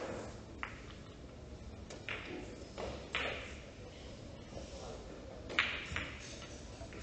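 Billiard balls clicking together on neighbouring tables in the hall: a handful of sharp, short clicks spaced a second or more apart, the loudest near the end.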